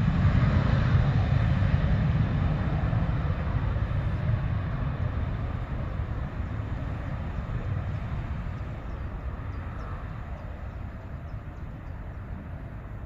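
KLM jet airliner's engines at take-off power as it starts its take-off roll: a heavy rumble and roar, loudest at first and slowly fading as the aircraft moves away down the runway.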